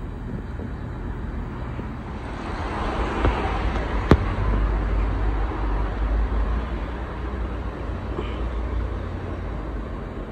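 Ceiling fan running on high speed: a steady rush of air with a low rumble, growing louder about two seconds in. There is one sharp click about four seconds in.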